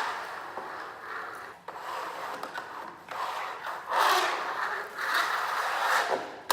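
Rough scraping and rubbing on sawn oak boards, in several strokes of a second or so each, loudest about four seconds in.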